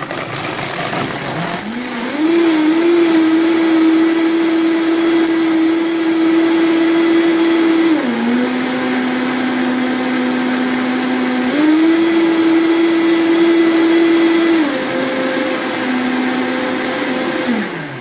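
Vitamix blender running, blending water, sugar, ice and a whole lemon into lemonade. Its motor whine climbs in pitch about two seconds in, drops lower twice and comes back up once in between, then winds down and stops near the end.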